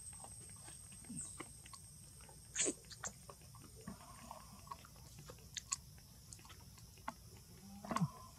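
Soft scattered clicks and smacks, the loudest about two and a half seconds in and again near the end, over a faint high steady tone that fades out about a second in.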